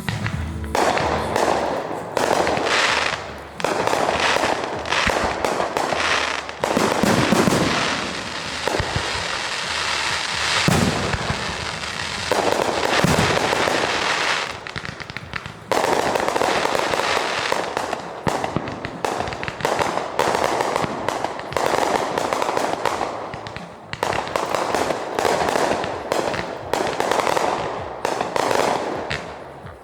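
Fireworks going off in a dense barrage: many bangs in quick succession mixed with crackling, easing for a moment about halfway through before picking up again.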